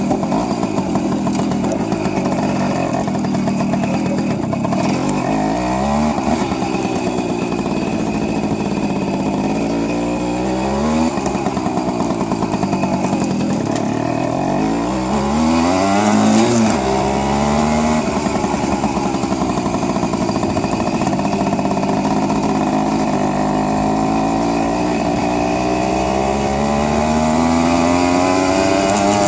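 Jawa Mustang moped's 50 cc two-stroke engine running under way. Its pitch climbs and drops back sharply three times as it picks up speed, then climbs slowly and steadily near the end.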